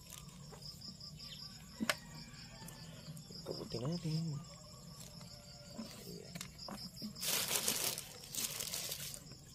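Clear plastic sheeting crinkling and rustling loudly for about two seconds near the end as it is pulled back over a mushroom bed, over a steady high chirring of insects. A single sharp click comes about two seconds in.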